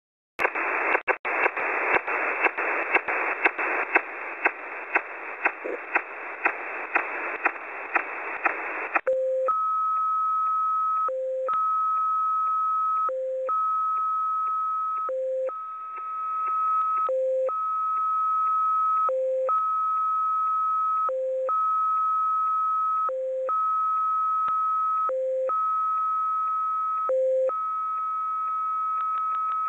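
Shortwave receiver hiss on upper sideband, cut by regular clicks about twice a second. About nine seconds in, the Russian SVR XPA numbers station's start tones come in: a long steady high tone alternating with a short low tone, repeating about every two seconds.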